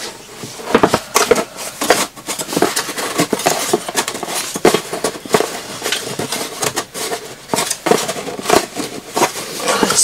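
Irregular clatter of wooden boxes and small items being handled and set down on a workbench: scattered taps and knocks.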